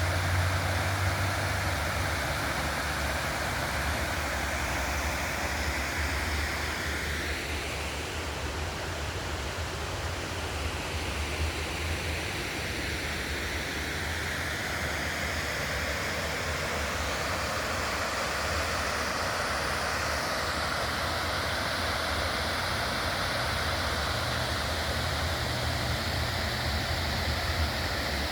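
Waterfall at an old mill dam: a steady rush of falling water with a low rumble underneath. The hiss shifts in tone about seven seconds in and again around twenty seconds.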